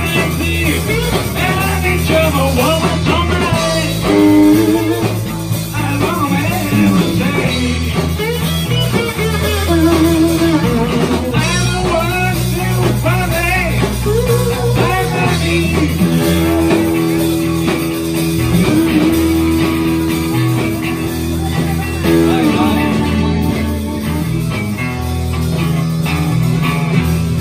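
Live rock and roll band playing: electric guitars over bass guitar and drums, with a lead guitar line carrying the melody and holding long notes in the second half.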